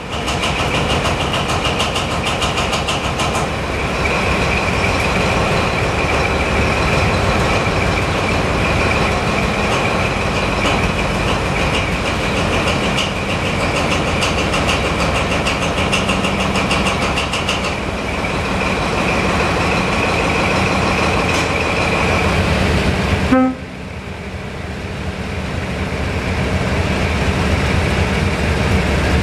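Diesel locomotive engines running: first the engine of the prototype HST power car 41001 working hard, with a steady high whine over a deep rumble. About 23 seconds in it cuts off abruptly, giving way to the lower running of a Class 56 diesel locomotive's Ruston-Paxman 16-cylinder engine, which grows louder.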